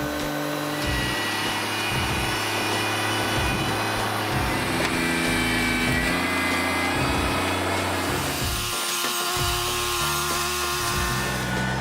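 A powered saw cutting steadily through wood.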